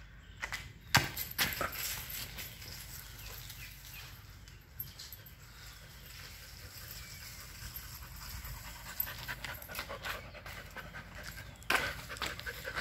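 A dog panting, with a few sharp knocks about a second in and again near the end.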